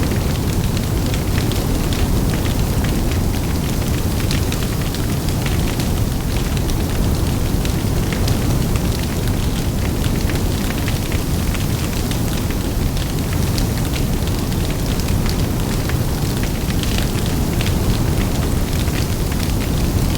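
Large open fire burning: a steady low rumble of flames with frequent sharp crackles and pops of burning wood.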